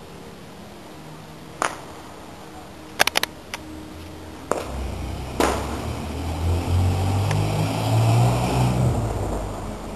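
Several sharp pops in the first half, then a vehicle passing: its engine rumble swells, is loudest about eight seconds in, and fades away.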